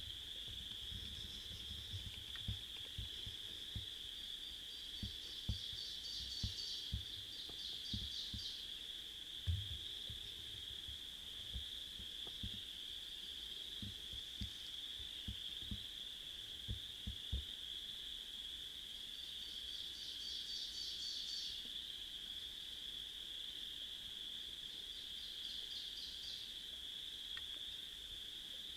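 Spring woodland ambience: a steady high-pitched chorus of calling frogs or insects. Short rapid trills rise over it three times, and low soft thumps come and go through the first two-thirds.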